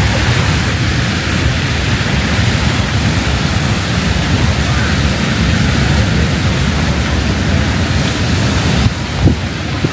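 Heavy rain pouring steadily, a dense even hiss with a deep rumble underneath. A short thump sounds near the end.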